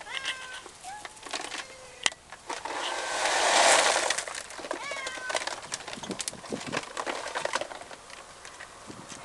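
Domestic cats meowing in short calls, a few in the first two seconds and a couple more about halfway through. Between them comes a loud rush of hiss-like noise, and small clicks and scuffs run throughout.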